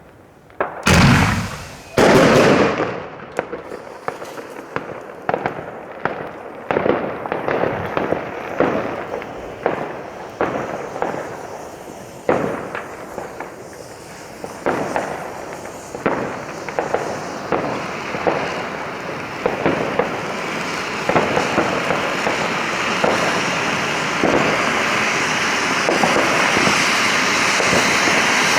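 New Year's Eve fireworks going off. Two loud bangs come about a second apart near the start, then a long series of sharp bangs and bursts every half second or so. In the second half this merges into a continuous hiss that keeps growing louder.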